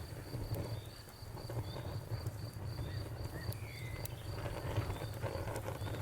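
Wood fire crackling, with scattered sharp pops over a steady low rumble. A faint high chirp repeats about three times a second behind it.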